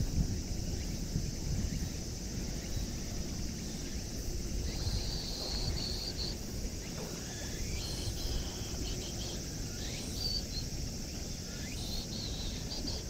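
Open-air background noise: a steady low rumble and hiss, with short high chirps every second or two, some held briefly and some rising.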